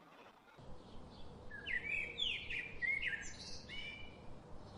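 Birds chirping: a run of short, quick chirps over a steady background hiss.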